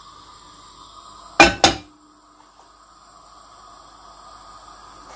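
A frying pan set down on a gas stove's metal grate: two sharp clanks about a quarter of a second apart, the first ringing briefly. A lit gas burner hisses faintly and steadily under it.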